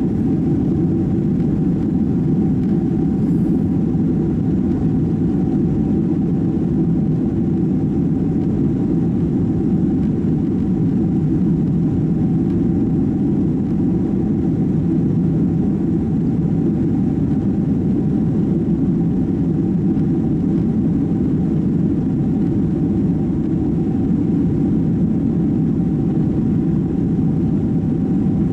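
Boeing 767-300 cabin noise during takeoff: the airliner's jet engines and rushing air make a steady, loud, low rumble, with a constant hum running over it.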